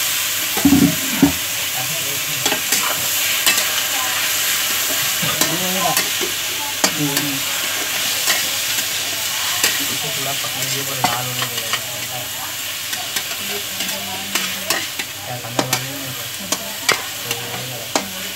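Chopped onions and tomatoes sizzling in oil in a steel kadhai over a low flame, stirred with a metal spatula that scrapes and clicks irregularly against the pan.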